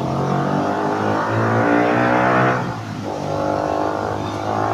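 A motor vehicle's engine running close by, swelling louder in the middle and easing back about three seconds in, then holding steady.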